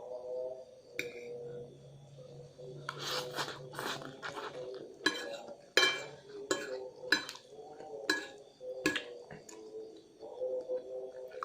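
Cutlery clinking and scraping against a bowl while eating instant noodles, with a run of sharp clinks through the middle. Faint background music plays underneath.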